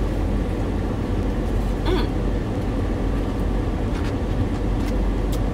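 Car air conditioning blowing steadily inside the cabin of a parked car, with a brief soft mouth sound about two seconds in as a burger is chewed.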